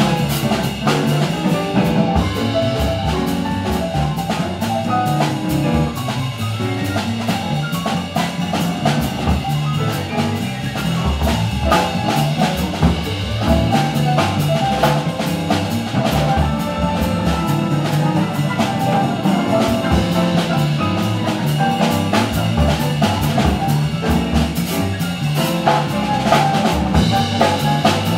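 Live jazz combo playing an instrumental passage: grand piano over upright bass and drum kit, with steady drum and cymbal hits throughout.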